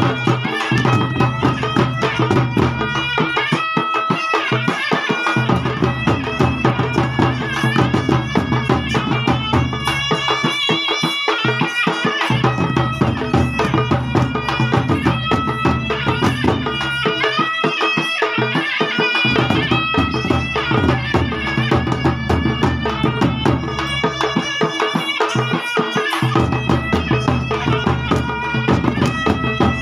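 Ghasiya baja folk band playing live: a shrill shehnai-type reed pipe carries a wavering, bending melody over a steady beat of hand drums, in phrases with a short break in the low drumming about every seven seconds.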